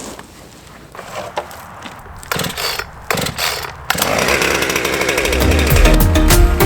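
Gas chainsaw with a freshly oiled chain, coming up to full revs about four seconds in and running loud after some short bursts and clicks.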